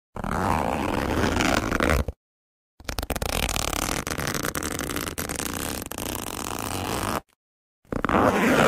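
Zipper being pulled three times: a pull of about two seconds, then a long slow pull of about four seconds in which the individual teeth click past, then a short quick pull near the end.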